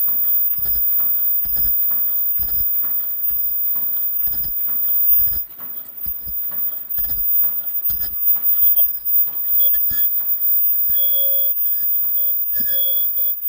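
Automatic disposable face mask production line running: regular mechanical clacking from its cycling stations. From about halfway through, the clatter is less regular, with brief high-pitched tones.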